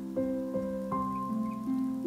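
Background music: a slow, gentle melody of sustained keyboard notes, a new note about every half second, each left ringing.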